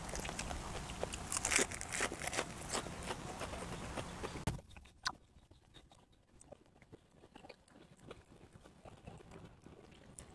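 A person chewing and biting food close to the microphone, with many small crunches and mouth clicks. About four and a half seconds in, the sound cuts off abruptly to near silence with only a few faint clicks.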